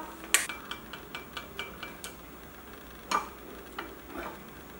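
A wooden spatula stirring beaten eggs in a glass bowl, knocking against the glass. There is one sharp knock near the start, then a quick run of light, slightly ringing taps, about five a second, and a few more scattered knocks.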